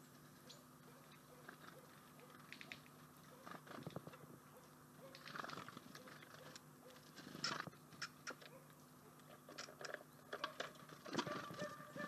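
Eurasian red squirrel handling and gnawing a nut on a wooden feeder tray: faint scattered clicks, scratches and rustles, coming thicker from about four seconds in and again near the end.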